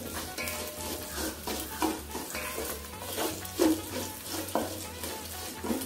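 Wooden spatula stirring and sautéing chopped ginger, garlic and green chillies in hot oil in a stainless steel pot: a steady sizzle with repeated scrapes of the spatula against the pan.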